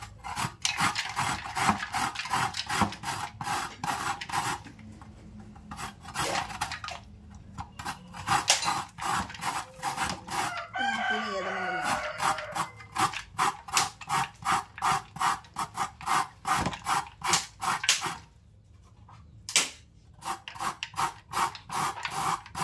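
Raw cassava rubbed hard against a flat metal hand grater over a steel bowl, shredding it for sawut: quick rhythmic rasping strokes, about three a second, that stop twice for a second or two. About eleven seconds in, a short pitched call falls in pitch over the strokes.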